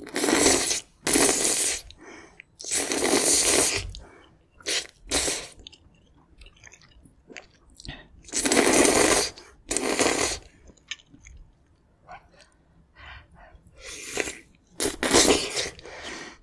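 Close-miked slurping of thin noodles out of spicy perilla-seed gamjatang broth: about half a dozen long, wet slurps, with soft chewing and mouth clicks in between.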